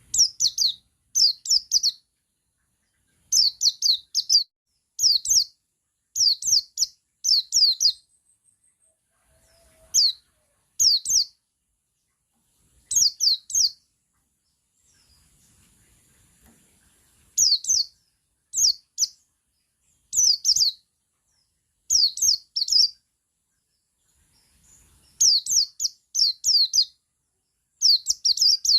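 Male white-eye of the 'buxtoni' type singing its 'ngalas' song: short bursts of rapid, high, quickly falling notes, grouped a few phrases at a time with pauses of a second or two between groups.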